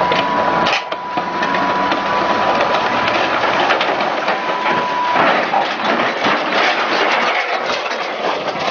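Tracked armoured vehicle climbing onto a lowboy trailer: its engine runs hard under a dense clanking and rattling of the tracks. A steady high whine runs through the first half and cuts off suddenly.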